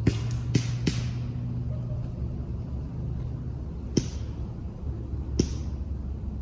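BB guns firing: sharp pops, three in quick succession in the first second, then single shots about four seconds in and about five and a half seconds in.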